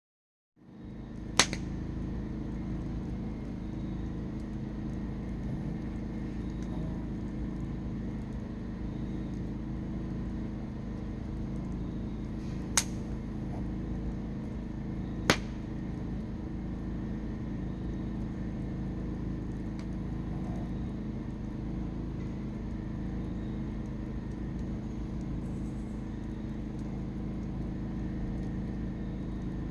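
Vehicle on the move: a steady engine and road rumble with a low hum, broken by three sharp clicks, about a second, thirteen and fifteen seconds in.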